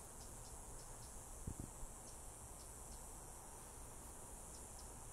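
Steady high-pitched drone of insects, faint, with scattered small ticks and a couple of soft low thumps about a second and a half in.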